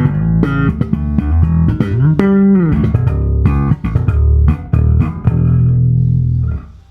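Stem Classic Style J5 five-string electric bass played solo: a line of plucked notes with slides up and down between them. The last note is held and then cut off sharply near the end.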